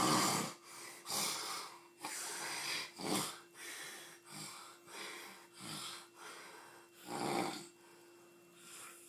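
Snoring: a run of rasping, wheezy breaths about once a second, the last one near the end weaker, over a faint steady hum.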